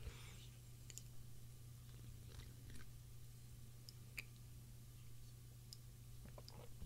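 Near silence with a low steady hum, a faint sip from a mug at the very start, then a few faint mouth clicks and small ticks.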